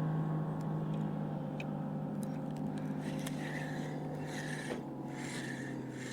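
Spinning reel's drag screaming as a fish runs off with a live pinfish bait, a steady buzz that slowly fades and drops in pitch about five seconds in.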